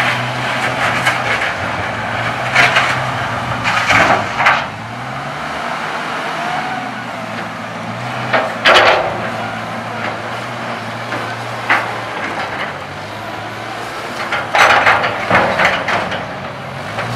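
A truck engine running steadily, its pitch shifting a couple of times, with several short bursts of loud rattling and knocking.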